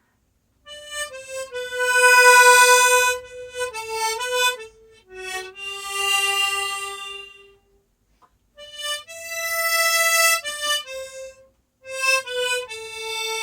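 A diatonic harmonica in G plays a slow melody line as single notes, in two phrases with a short break about eight seconds in. The long held notes swell and then fade away, played with an open throat and a widened mouth cavity for a rounder tone.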